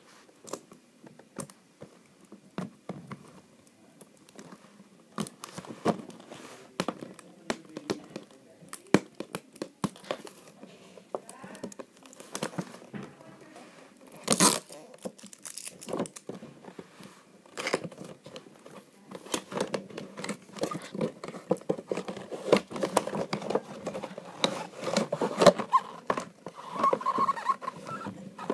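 A cardboard headphone box and its packaging being handled and opened by hand. Scattered taps and scrapes on the card come first, then one brief loud rip about halfway through, then dense rustling and crinkling of the packaging toward the end.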